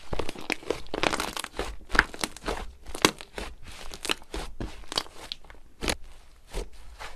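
Slime being squeezed and worked by hand, giving irregular crackling, clicking and popping.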